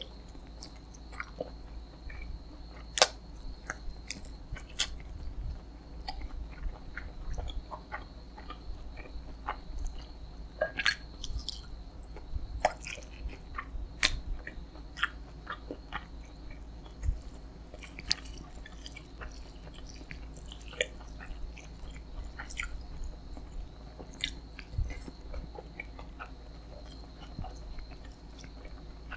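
Close-miked chewing and biting of chicken biryani and tandoori chicken, with many sharp wet mouth clicks scattered throughout over a steady low hum.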